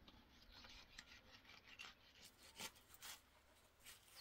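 Faint, short scrapes of knives cutting raw lamb meat on a wooden cutting board, a few separate strokes.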